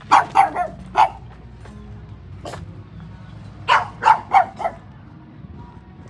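A dog barking: a quick run of about four barks, a single bark, then another run of about four.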